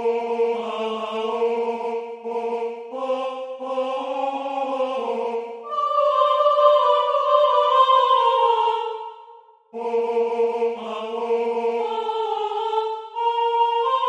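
Playback of a three-part vocal score in synthesized choir voices: sustained sung notes in close harmony, moving from chord to chord, with a brief break about ten seconds in.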